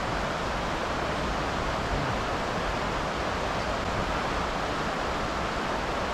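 Steady rushing hiss of river water flowing over nearby rapids.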